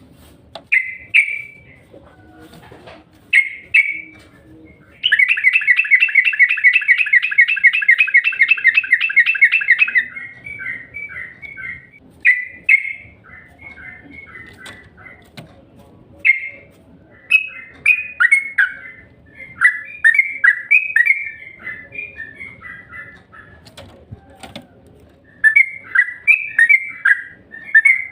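Yellow-vented bulbul (cucak trucuk) singing short bubbly chirping phrases, with a loud, rapid, continuous trill lasting about five seconds near the start.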